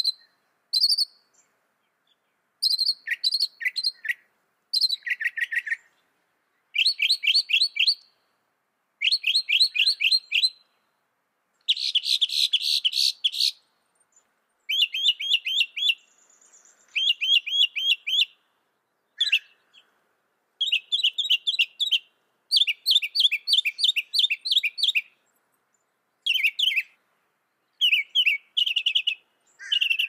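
Northern mockingbird singing: a string of phrases, each a quick run of repeated high notes lasting a second or two, with short pauses between them and a different note pattern from one run to the next.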